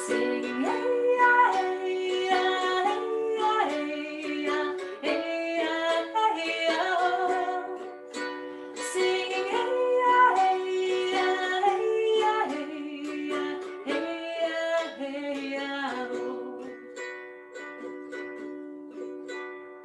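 Music: a gentle, chant-like mantra song with plucked-string accompaniment and a wordless melody line moving over steady held notes; it thins out to the held notes near the end.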